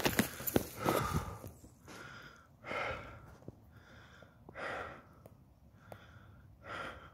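A person breathing hard close to the microphone, one breath about every two seconds. A few clicks and knocks come in the first second and a half.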